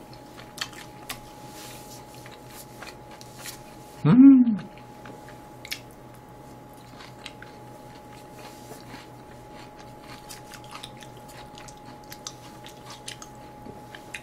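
Close-up chewing of sauced, battered and fried sweet and sour pork (tangsuyuk), with small wet clicks and crunches. About four seconds in comes a short hummed 'mm' that rises and then falls in pitch; it is the loudest sound. A faint steady tone runs underneath.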